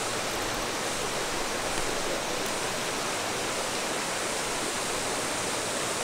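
A tall waterfall heard close from its base: a steady rush of falling water.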